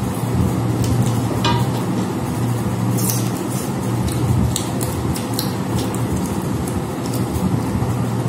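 A steady rushing noise with a low hum, over which come scattered light clicks and scrapes of fingers and food on metal dinner plates as two people eat by hand.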